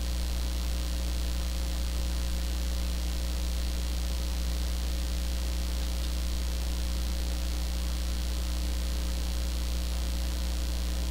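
Steady low electrical hum with a faint even hiss, unchanging throughout: mains hum picked up in the recording.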